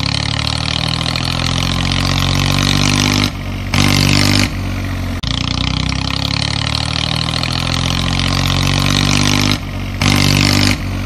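Tractor engine running steadily, its pitch creeping up slowly. The sound changes abruptly a few times, briefly louder twice.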